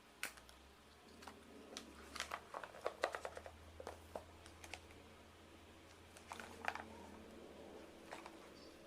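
Light clicks, taps and rustles of paper and plastic album items being handled and put back into the album packaging, with a faint steady low hum underneath.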